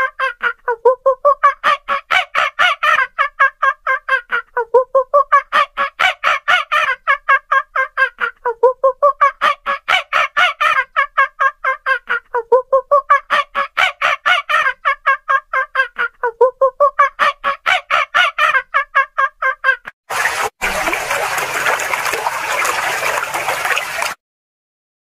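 A rapid, pulsing animal call of about ten pulses a second, repeated as five near-identical phrases of about four seconds each. It cuts off near the end and is followed by a few seconds of rushing noise.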